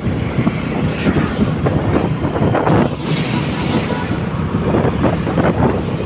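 Wind buffeting the microphone over the rumble of a moving vehicle.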